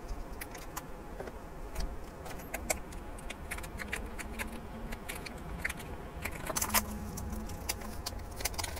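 Foil-lined sauce sachets crinkling and crackling in the hands as a liquid sauce is squeezed out and a powder soup packet is emptied into a paper cup; the crackles come in scattered clusters, thickest about two-thirds of the way through.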